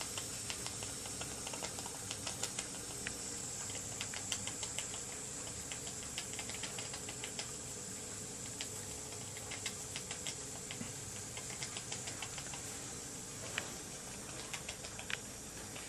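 Small scratch-built model steam engine running slowly and smoothly: a light, irregular patter of clicks from its exhaust and moving parts over a steady hiss from the boiler.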